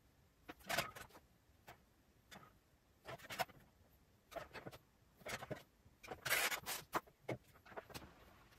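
A small metal spoon scraping and clinking against a bowl and small glass jars as a soft mixture is spooned out. The scrapes and clinks come irregularly, each short, with the longest scrape about three-quarters of the way through.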